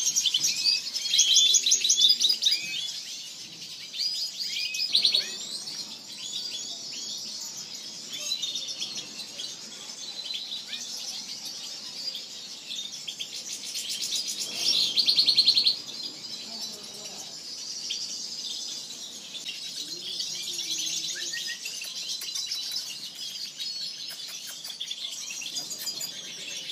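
Several small captive finches, European goldfinches and canaries, chirping and singing over each other, with fast trills that are loudest about a second in and again around fifteen seconds in.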